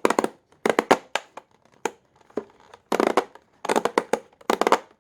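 Rapid bursts of sharp knocks, several strokes in quick succession, repeated about five times: the Hoover NanoLite vacuum's filter being rapped against a hard edge to knock the trapped dirt out.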